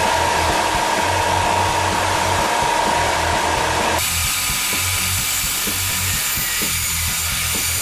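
Oscillating edge belt sander running while a laminated wood spatula blank is pressed against the belt, with a steady hum. About four seconds in, it cuts abruptly to a band saw cutting the wooden handle shape. Background music with a steady beat runs underneath.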